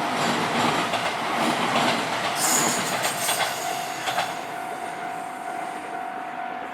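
Electric train passing over a level crossing, its wheels clicking over the rail joints. The clatter eases off after about four seconds, leaving a steady high tone.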